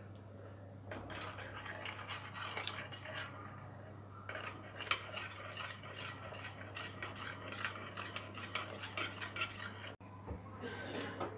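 Steel spoon stirring water with turmeric and salt in a small stainless steel bowl: quick, rapid clinks and scrapes of metal on metal in two spells, stopping suddenly about ten seconds in. A steady low hum runs underneath.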